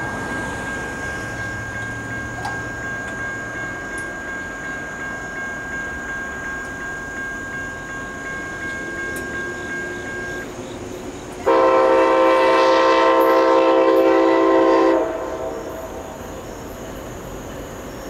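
Nathan K5LA five-chime horn on a CSX ST70AH locomotive sounding one long blast of about three and a half seconds, about two-thirds of the way through, as the train approaches. Before the blast there is a faint rumble of the oncoming train and a thin steady high tone.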